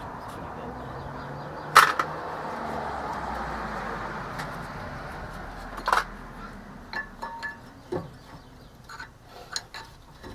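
Metal brake parts clanking as they are handled: two sharp clanks, then a run of lighter clinks with a brief metallic ring.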